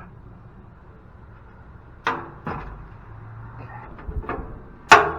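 Metal parts knocking and clanking as a machine is taken apart by hand: a clatter about two seconds in, a few light ticks, then a sharp, loud clank near the end.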